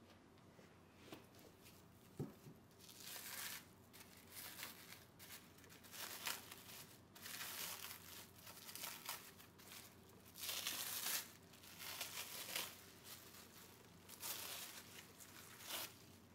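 Plastic cling film crinkling and rustling in irregular bursts as it is peeled off a ball of cookie dough, with a light knock about two seconds in.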